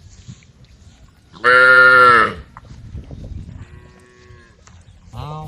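Cows mooing: one loud moo about a second and a half in, a fainter one from further off around four seconds, and another loud moo beginning near the end.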